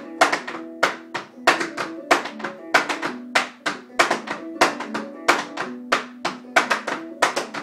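Taps on shoes striking a wooden floor in a rapid flatfooting rhythm, several sharp clicks a second, danced as the Flatfooters Alamo: two three-sound walking steps, then a rock step. Old-time clawhammer banjo music plays underneath.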